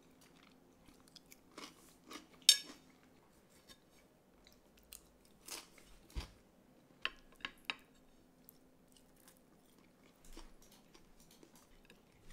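Scattered quiet clicks and taps of utensils and dishes, with soft chewing. There is one sharp clink about two and a half seconds in and three quick ones a little past the middle.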